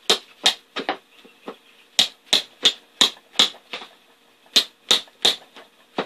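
A hammer tapping staples down into the edge of a four-wheeler seat's vinyl cover: a run of sharp light knocks, about two to three a second, with short pauses between groups.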